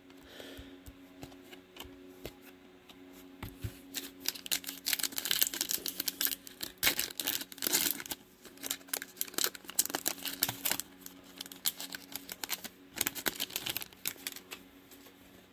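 A football trading card pack's wrapper crinkling as it is torn open, then the cards sliding and flicking against each other. It is a dense run of crackles and clicks, busiest between about four and fourteen seconds in.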